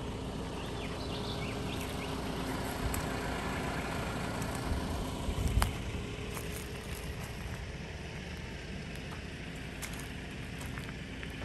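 Outdoor bush ambience: a steady noisy bed with rumbling wind buffeting the microphone under a faint steady low hum, with a few brief high chirps about a second in and a single sharp thump about halfway through.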